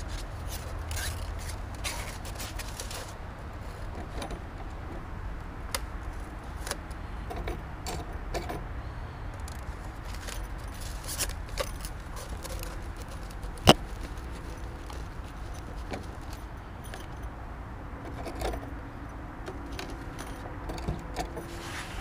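Thin titanium stove-pipe sheet being flexed and rolled by gloved hands against plywood: irregular metallic crinkles, scrapes and ticks, with one sharp click about two-thirds of the way through.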